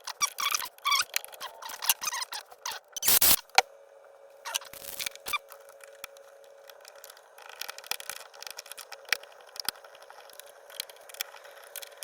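Hand screwdriver working a screw into a kayak's plastic: short squeaky bursts of metal turning against the screw head, a sharp clatter about three seconds in, then scattered light clicks.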